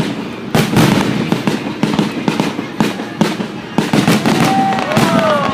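Fireworks display going off: a rapid run of overlapping bangs and crackling, several a second, with a few gliding whistle-like tones near the end.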